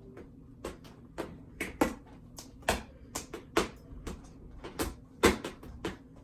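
Irregular short, sharp rustles and clicks of paper being handled: gift wrapping and a card being opened. There are about fifteen of them, spaced unevenly, with the loudest around the middle and near the end.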